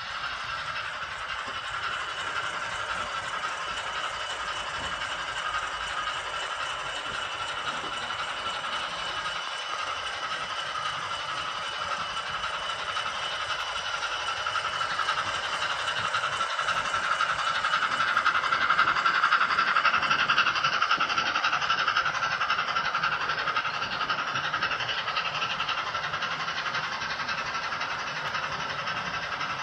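Steam locomotive running sounds from a Zimo MS450R sound decoder, played through a 28 mm speaker in a Hornby OO-gauge LNER A3 Pacific model as it runs on the layout. The sound is steady, grows louder a little past the middle and eases off toward the end.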